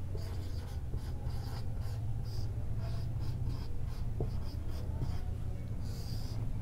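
Marker pen writing on a whiteboard: a run of short strokes as a word is written out, then one longer stroke near the end as it is underlined.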